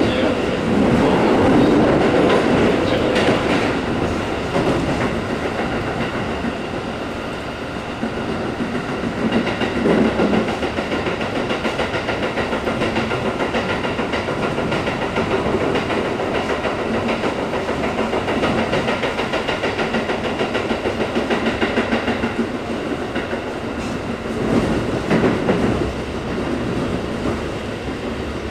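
Keikyu N1000 series electric train running at speed through a subway tunnel, heard from inside the passenger car: a steady rumble of wheels on rail with rail-joint clickety-clack, swelling louder a few times.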